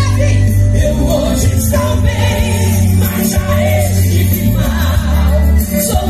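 Portuguese-language Christian gospel song played by a band, with a steady bass and voices singing a melody over it.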